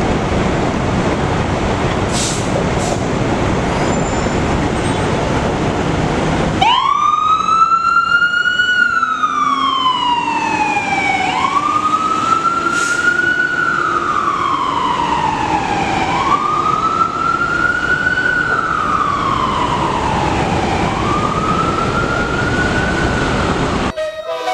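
Tractor-drawn fire department ladder truck moving off, first a loud, steady rumble of vehicle noise. Then, about six seconds in, its siren comes on in a wail that rises quickly and falls slowly, roughly one cycle every five seconds. Near the very end a different siren with a faster sweep cuts in.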